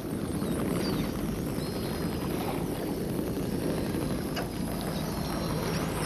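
Steady low rushing rumble of churning sea water surging over rock, with a few faint high whistles gliding up and down above it.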